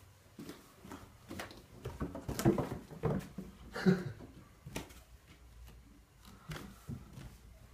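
A kitten's paws pattering down wooden stairs: a run of soft, irregular thumps, with a few louder ones near the middle of the descent.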